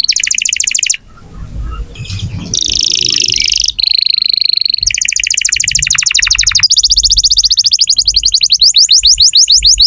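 Canary singing loudly in fast trills and rolls. It breaks off briefly about a second in, then ends with a quickening run of rising whistled notes.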